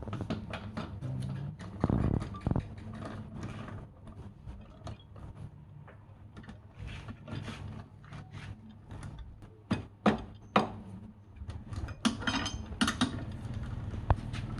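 Woodworking shop sounds: a steady low machine hum under irregular sharp clicks and knocks of tools and wood, with a cluster of knocks about ten seconds in and another near the end.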